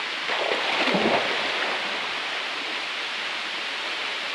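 Steady rush of flowing water from a waterfall and its stream, with faint voices briefly about a second in.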